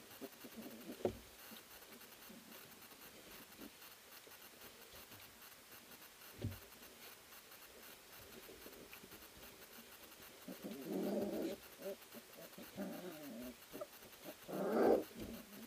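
Three-week-old Eurohound puppies play-wrestling on wood shavings: soft scuffling and a couple of light knocks, then small yips and growls in the last few seconds, the loudest one near the end.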